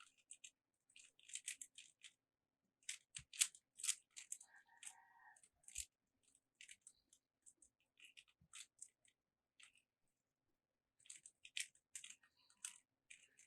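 Rubik's Cube being scrambled: faint, irregular clicks and scrapes of its plastic layers turning, in quick clusters with short pauses.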